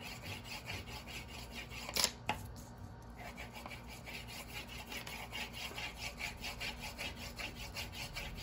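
Purple crayon scribbling back and forth on a sheet of paper laid on a wooden desk: quick, even scratchy strokes, about four or five a second. A single sharp tap about two seconds in.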